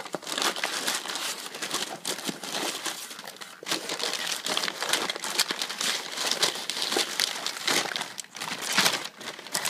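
Brown kraft packing paper crumpling and rustling as hands dig through it in a cardboard box, with a couple of brief lulls.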